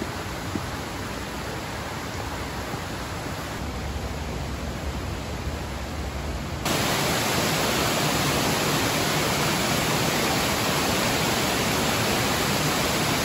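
Steady rushing of water from waterfalls and cascades tumbling through a rock gorge, jumping abruptly louder about halfway through.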